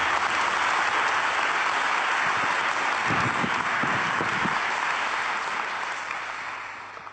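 Audience applauding: steady clapping from many hands that dies away near the end.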